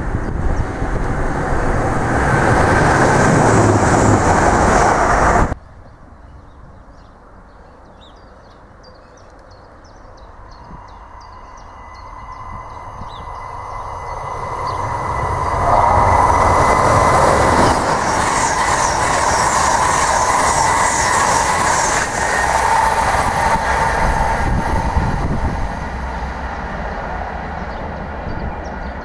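A Class 185 diesel multiple unit running loud and close, cut off abruptly about five seconds in. After a quieter spell, train noise builds up again, with a steady high ring, and stays loud for several seconds before easing a little near the end.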